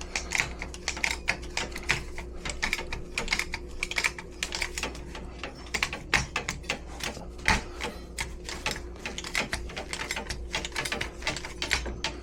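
Hand-operated sheet-metal tool working on metal ductwork: a dense run of rapid, irregular sharp clicks, several a second, over a faint steady hum.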